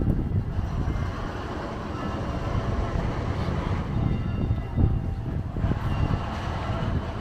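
Steady low rumble of passing motor traffic, with a brief louder swell about five seconds in.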